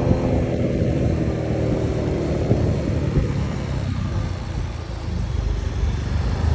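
Honda Click motor scooter being ridden through traffic: a steady engine and road rumble with passing vehicles. Around three seconds in, the engine pitch falls and the rumble eases, as when the scooter slows down, before it picks up again near the end.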